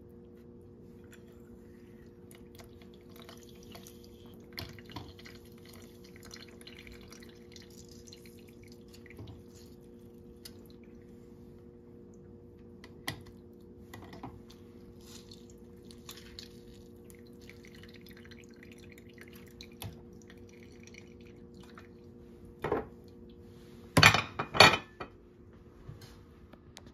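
Kitchen utensils and dishes being handled during food prep: soft scraping and small clicks, then a few sharp clinks near the end, over a steady low hum.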